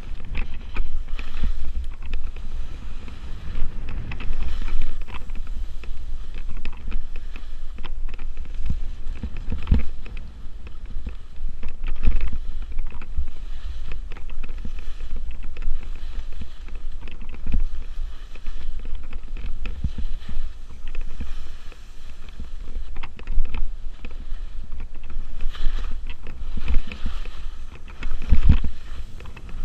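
Skis hissing and scraping through soft spring slush in repeated turns, a surge every couple of seconds, over steady wind buffeting the camera's microphone.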